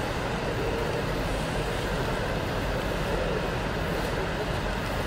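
Steady rumbling hiss of ice-rink ambience, with no distinct events.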